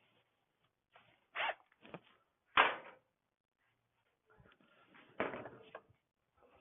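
Scattered knocks, scrapes and clatter of scooter parts being pulled loose and handled during a teardown, the loudest a sharp knock about two and a half seconds in.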